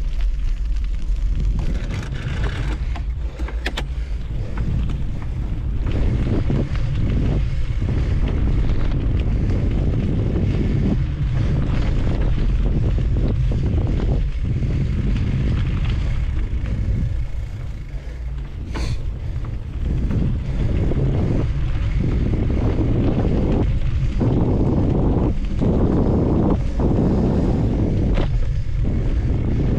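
Wind buffeting the microphone of a mountain bike rider going fast, over the rumble and rattle of the bike's tyres on a rough dirt trail. The rattle swells and eases with the ground, and there is a sharp click about two-thirds of the way through.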